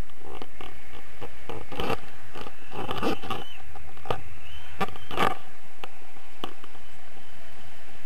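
Wind rushing over an action camera's microphone in paraglider flight, with scattered scrapes and knocks about half a dozen times.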